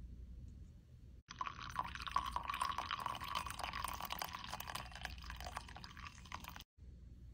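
Liquid splashing and dripping, a dense run of small splashes that cuts in suddenly about a second in and cuts off near the end.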